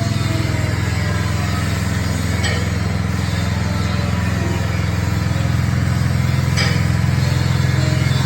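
Small Honda petrol engine running steadily at constant speed, driving a coconut milk press, with a couple of faint clicks from the machine.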